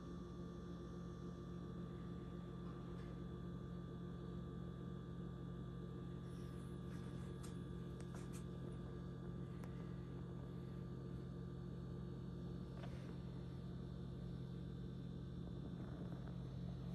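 Steady low hum made of several constant tones, with a few faint ticks about six to nine seconds in.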